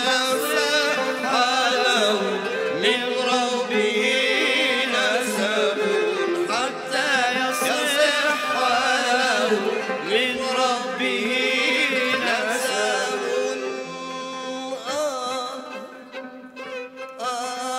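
Arabic classical takht ensemble (violin, qanûn and ʿūd) playing a Levantine maqam melody with wavering, ornamented lines. It grows softer for a moment near the end.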